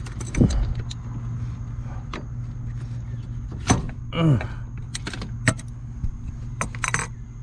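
Tools working a hydraulic line fitting on a lowrider's front hydraulic cylinder: scattered metal clicks and clinks, with a few short squeaks that slide down in pitch, over a steady low hum. A cluster of quick clicks comes near the end.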